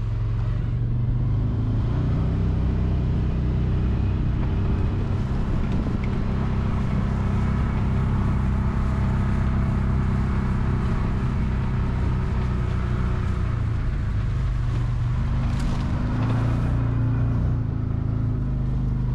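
A vehicle engine running steadily as it drives along, its pitch shifting slightly about fifteen seconds in.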